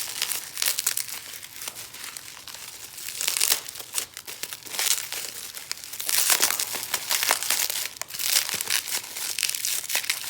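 Packaging crinkling and rustling as it is unwrapped by hand, in irregular crackly bursts with a little tearing.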